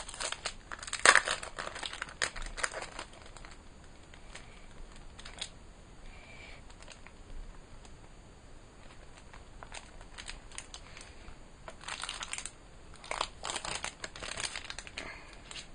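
Thin plastic protective sleeve being peeled and pulled off an e-reader, crinkling. The crinkling comes in bursts during the first few seconds and again near the end, with quieter handling between.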